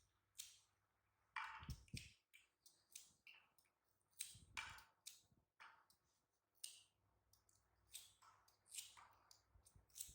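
Faint, irregular clicks and soft taps scattered throughout, with a couple of brief rustling thuds.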